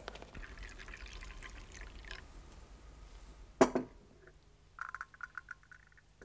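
A single sharp knock about halfway through, then coffee poured from a porcelain pot into a cup, a quick rippling trickle near the end.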